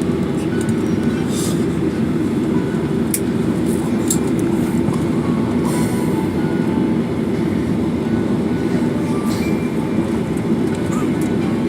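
Steady low rumble of a moving vehicle, with a few brief high hisses and ticks over it.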